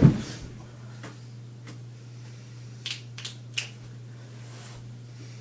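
A heavy thump of a body slamming down onto a carpeted floor, then a few sharp slaps or clicks close together about three seconds in.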